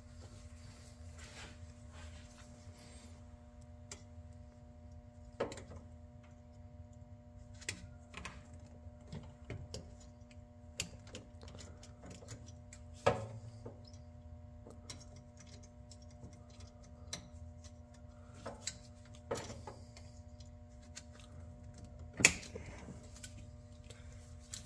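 Scattered small metallic clicks and taps of hand tools working the retaining clip on a UTV's shifter linkage, with a sharper knock about halfway through and another near the end. A faint steady hum runs underneath.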